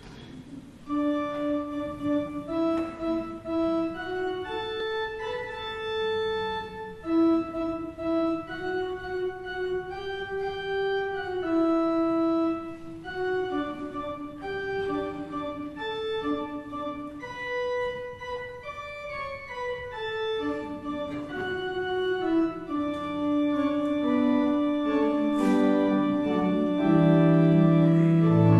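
Church organ playing a hymn tune: a melody of held notes over soft chords, growing louder and fuller near the end.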